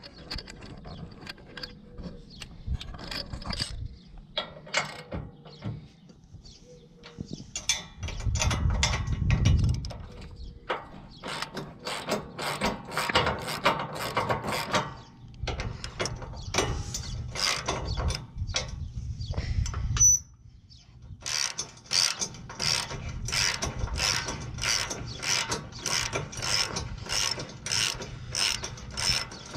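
Hand ratchet and socket clicking as it turns a bolt on a bumper bracket, in several runs of quick, even clicks (about two or three a second) broken by short pauses.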